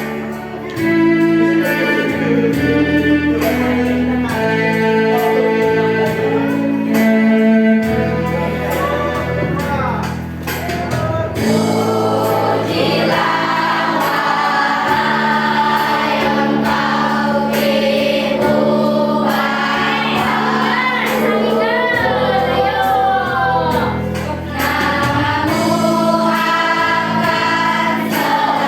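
Children's choir singing a slow hymn-like song over a steady instrumental accompaniment of sustained chords. The first part is the accompaniment's introduction alone, carrying the melody; the voices come in a little before halfway.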